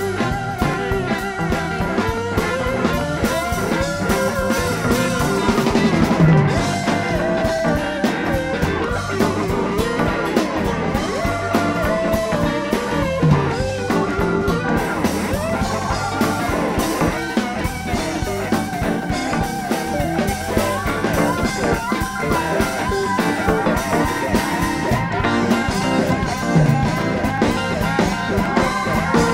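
Live blues-rock band playing an instrumental jam: a lead electric guitar with gliding, bending notes over a drum kit and the rest of the band.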